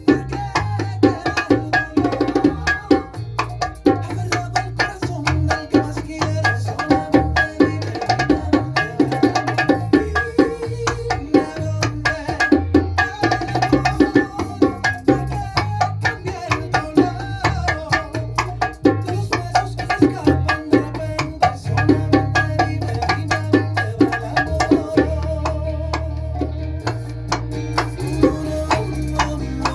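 Bongos played in bachata rhythms, quick hand strokes in the martillo pattern and its variations, over a bachata accompaniment with a moving bass line and melody.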